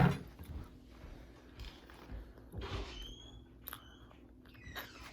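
Close-up sounds of someone eating Wingstop chicken wings: irregular biting, chewing and smacking. There is a sharp knock at the very start and a couple of brief high squeaks a little past the middle.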